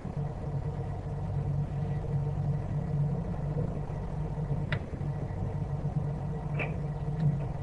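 The inboard engine of a 1974 Gulfstar 44 motor sailor running steadily under way, a constant low drone. Two brief clicks break through, one about halfway through and one near the end.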